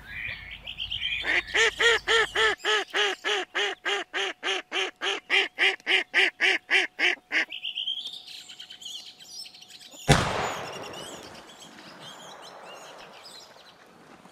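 A Semyonovsky-breed decoy duck, a domestic mallard hen, gives a long fast run of about twenty-five quacks, the hen's calling that draws a drake in. About ten seconds in comes a single sharp shotgun shot, which echoes away over about two seconds.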